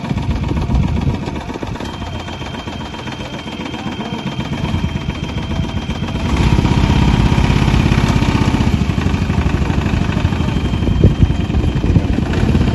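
Quad bike (ATV) engine running, growing louder about six seconds in.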